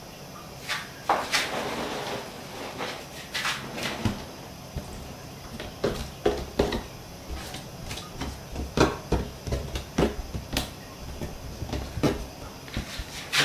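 Shredded boiled pork dropped by the handful into a non-stick wok, with soft rustling and irregular light clicks and knocks as a plate of the meat is tipped and tapped against the pan.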